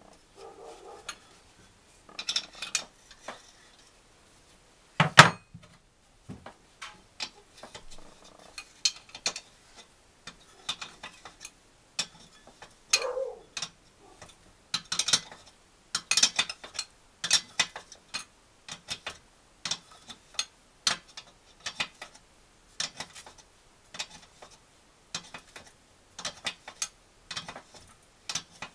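Metal hand tools and engine parts clicking and clinking as the engine is taken apart: a steady run of irregular sharp metallic clicks, with one heavier knock about five seconds in.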